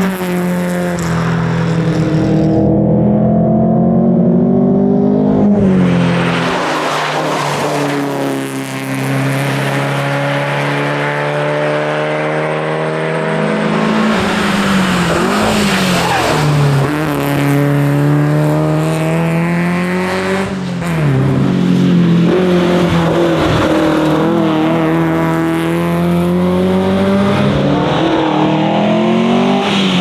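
Volvo 122S rally car's four-cylinder engine driven hard, its pitch climbing through the revs and dropping back at each gear change and lift of the throttle, several times over, with road and tyre noise beneath.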